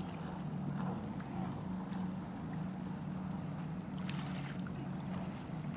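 A steady low mechanical drone, like a distant engine, with a brief soft rush of noise about four seconds in.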